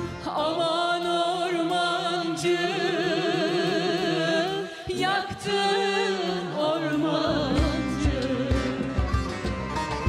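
Turkish folk song (türkü) performed live: long, drawn-out sung notes with a wavering vibrato over sparse backing, the beat dropping out, then the rhythm section and instruments coming back in about seven seconds in.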